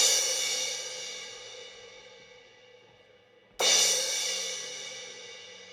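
A drum kit's left cymbal struck on its own for a sound check: one hit right at the start, left to ring and slowly die away, then a second hit a little past halfway through that rings out the same way.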